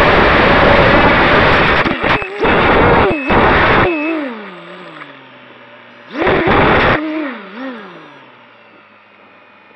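ZMR250 racing quadcopter's brushless motors and propellers, heard through its onboard camera. A loud rush of flight breaks up about two seconds in as the quad crashes into the ground. The motors cut and spin down with a falling whine. About six seconds in they rev briefly once more, then wind down again to a faint hum.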